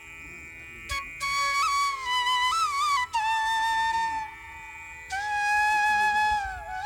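Background music: a flute playing a slow melody of held notes with slides and small ornaments, in two phrases with a short pause between them.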